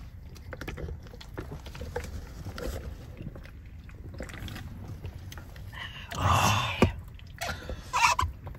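People drinking from beer and chuhai cans, with small mouth and swallowing clicks, then a loud breathy exhale about six seconds in and a shorter one near eight seconds.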